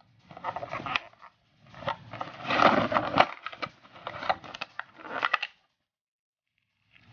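Plastic packaging being handled: the molded plastic tray and the thin plastic wrap around the trimmer crackling and clicking as it is lifted out. It stops about a second and a half before the end, then faint rustling returns.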